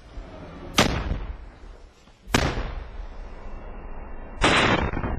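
Weapons fire: two sharp, loud shots about a second and a half apart, each trailing off in echo, then a rougher half-second burst near the end.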